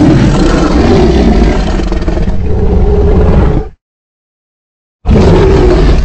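Carcharodontosaurus roar sound effect, a designed dinosaur voice: a long, loud, deep roar that cuts off abruptly about four seconds in. After a second of silence a second roar starts near the end.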